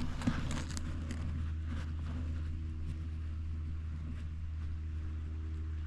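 A steady, low mechanical hum with a constant pitch, with a few faint footstep-like clicks in the first second.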